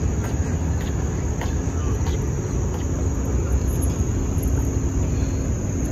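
Steady outdoor background rumble, loud and low, with a high, steady insect drone held over it.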